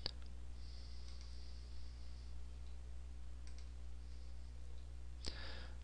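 A few faint computer mouse clicks, one right at the start, a couple more about three and a half seconds in and one near the end, over a steady low hum.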